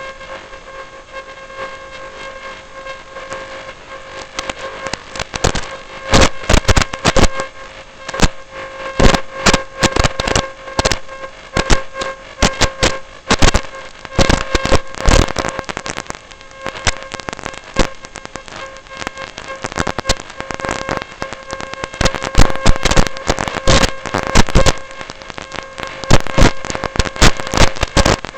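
Dense, irregular crackling and clicking over a steady high whine, picked up by the robot's onboard first-person-view camera feed.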